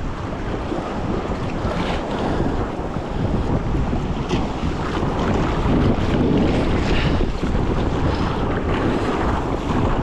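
Strong wind buffeting the microphone over choppy sea, with waves slapping against a kayak and splashes of water every second or two as the paddle strokes and chop hit the hull.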